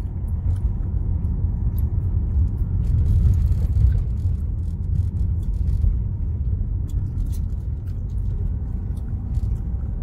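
A car driving, heard from inside the cabin: a steady low rumble of engine and tyre noise, with scattered faint ticks.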